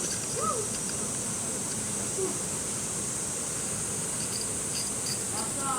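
Steady high-pitched drone of insects over the rush of stream water.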